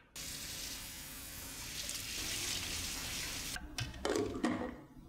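Tap water running steadily into a stainless steel pot in a sink. Near the end it stops, and the pot's glass lid with its steel rim is set on with a few clinks.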